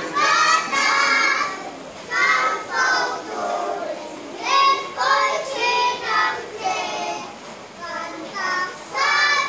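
A group of young children singing together in short phrases, with brief pauses between them.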